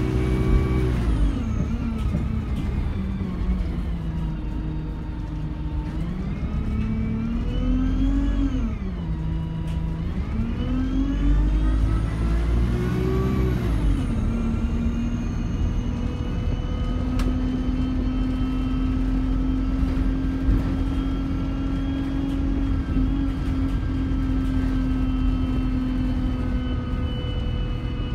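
Alexander Dennis Enviro200 bus engine heard from inside the saloon: the engine note falls as the bus slows, then rises twice under acceleration, dropping back each time as the gearbox changes up, and settles into a steady hum as the bus cruises.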